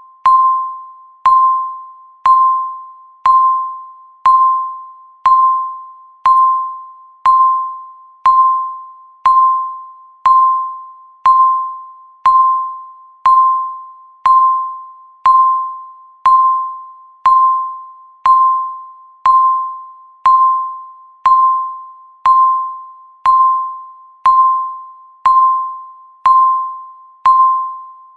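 Countdown timer ticking once a second, steady and even: each tick a sharp click with a short ringing tone that dies away quickly.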